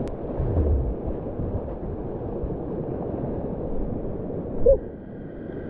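River whitewater rushing and churning around a kayak, a steady low rush of water with a single knock near the end.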